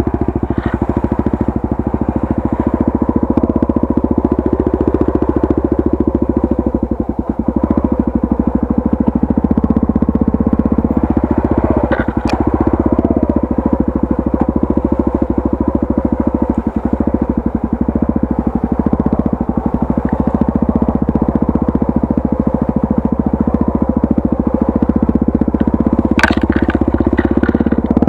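Honda Tornado 250's single-cylinder four-stroke engine running at low, wavering revs as the motorcycle is ridden slowly over rough ground. A sharp knock comes about twelve seconds in and another near the end.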